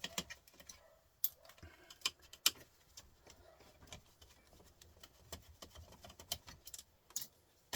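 Irregular light clicks and taps of plastic and metal parts of a small flat-screen TV being handled during a teardown, with a few sharper knocks about one to two and a half seconds in.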